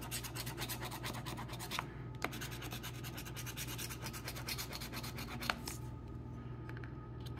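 A coin scratching the coating off a scratch-off lottery ticket in fast, repeated strokes, many per second. The scratching stops about six seconds in.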